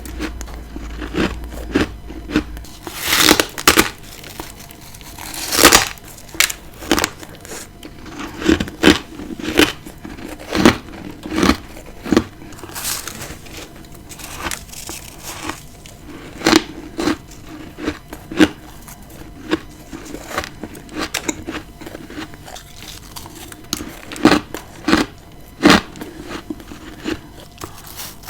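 Close-miked bites and chewing of powdery freezer frost: irregular crisp crunches, dozens of them, with the loudest bites about three and six seconds in and again near the end.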